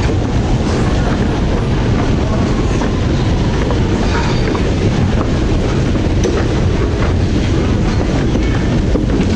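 London Underground train running through a station, heard from inside the carriage: a loud, steady rumble of wheels on rail with a few sharp clicks.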